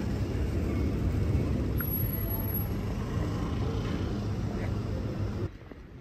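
Steady low rumble of city street traffic heard from an outdoor café table, dropping suddenly to a quieter street background near the end.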